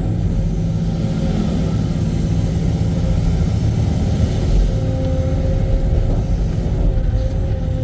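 Diesel engine of a ship-unloading excavator running steadily, a low drone with a faint steady whine above it.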